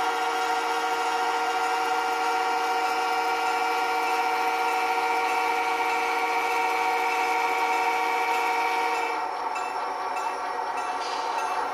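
Model diesel locomotive running, a steady buzzing drone made of several fixed tones with no low bass. About nine seconds in, the lowest tone drops out and the sound thins a little.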